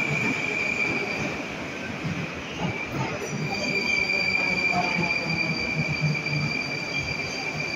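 Metro train running along an underground station platform, its wheels squealing with a steady high tone over the rumble of the wheels; a second, higher squeal joins about three and a half seconds in.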